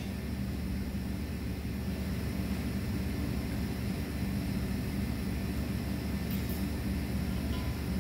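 Steady low machinery hum that does not change, with a faint click about six and a half seconds in.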